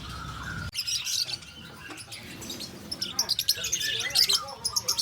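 Many small birds chirping and twittering in quick, overlapping calls that grow busier about halfway through, with faint voices beneath. A low rumble cuts off suddenly under a second in.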